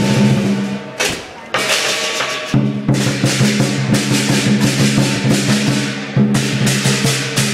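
Dragon-dance percussion: a big drum struck in repeated beats together with crashing cymbals, the strikes ringing on between beats.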